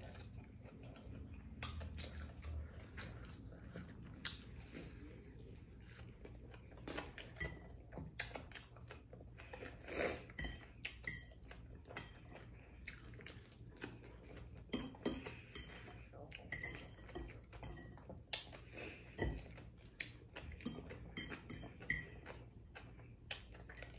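Fork clinking and scraping on a plate in short, scattered taps while picking at fried fish, with soft chewing in between.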